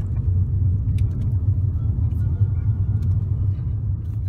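Steady low rumble of a car's road and engine noise, heard from inside the cabin while it drives, with a few faint clicks.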